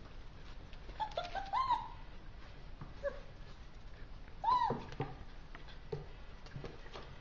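Four-week-old German Shepherd puppies yelping during play-fighting: a quick run of short yelps about a second in, a single short one around three seconds, and a louder yelp that rises and falls after about four and a half seconds.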